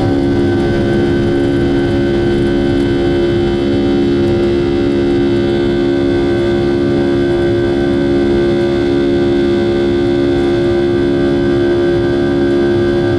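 Boeing 757-200's Rolls-Royce RB211 turbofans at takeoff thrust, heard from inside the cabin beside the wing: a loud steady roar with several held tones as the jet lifts off and starts to climb.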